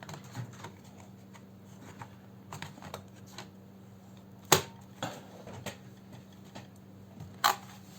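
Plastic handling noises and small rattles as the Asus Eee PC 1015BX netbook's battery pack is fitted back into its bay, with two sharp clicks, one about halfway through and one near the end.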